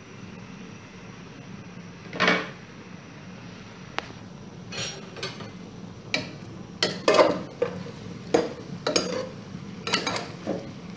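A metal pot clanks once about two seconds in, then a metal spoon stirs chunks of pork in the pot, with a run of clinks and scrapes against the pot's sides. Under it runs a faint steady hiss from the pork simmering in its last water.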